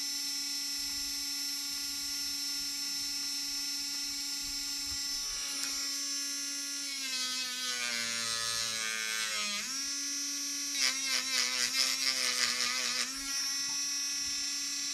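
Small corded handheld rotary tool (mini drill) running with a steady high whine. About seven seconds in its pitch sags as it is pressed into the work, snaps back up, then it chatters unevenly for a couple of seconds while grinding before running freely again, as burrs and dried glue are taken off a plastic camera mount.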